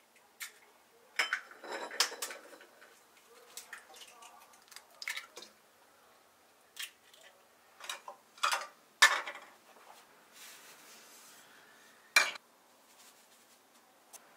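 Taps, clinks and knocks of baking prep at a stainless steel mixing bowl: eggs cracked against the bowl and plastic measuring cups knocking on the bowl's rim. A dozen or so separate sharp clicks, the loudest about nine and twelve seconds in.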